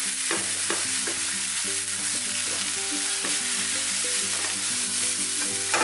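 Diced potatoes, shallots and tomatoes sizzling in a non-stick frying pan while a spatula stirs them, with a few scrapes and taps of the spatula on the pan early on.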